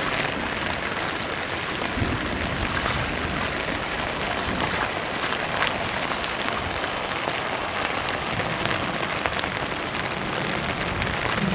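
Heavy rain falling steadily, a dense even hiss with scattered sharper drop splashes.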